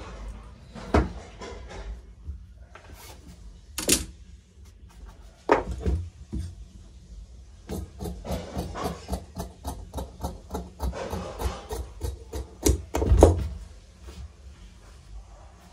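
Tailor's scissors cutting blouse fabric on a cutting table: a quick run of short snips in the middle, with rustling of the cloth and a few knocks of the scissors and hands on the table, the loudest near the end.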